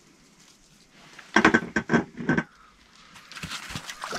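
A person's voice: a loud burst of four or five short cries starting about a second and a half in. Near the end, rustling and shuffling movement with small knocks.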